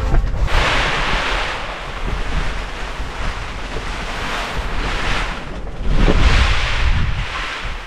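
Strong gusty wind, swelling and easing in several gusts with the loudest near the end, with a constant low rumble of wind on the microphone.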